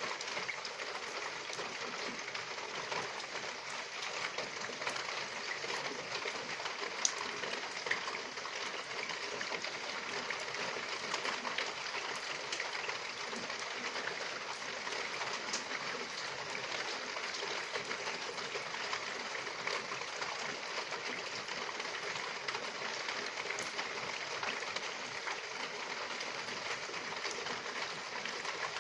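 Steady rain falling: an even hiss dotted with many small drop ticks, with a couple of sharper drip hits about seven and eight seconds in.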